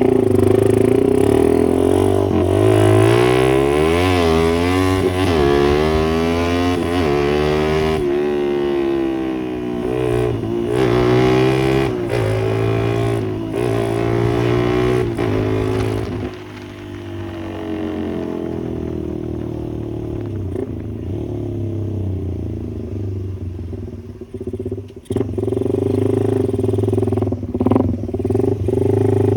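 Suzuki Satria FU's single-cylinder four-stroke engine warming up. It runs at a steady idle, is revved up and down repeatedly for several seconds, then settles back to a lower idle that dips briefly near the end before steadying again.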